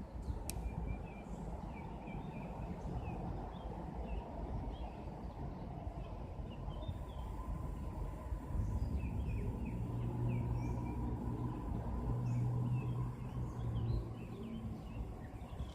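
Birds calling in short chirps over a steady low outdoor rumble. A low hum comes in about halfway through and fades out near the end.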